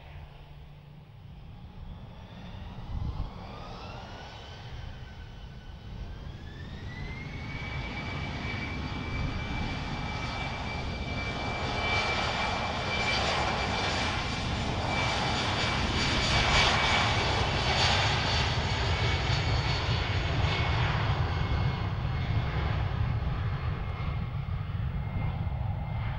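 Airbus A319's CFM56 jet engines spooling up to take-off power: a whine rises in two steps and then holds a steady high tone. The engine noise grows loudest as the jet rolls past on its take-off run, then eases near the end.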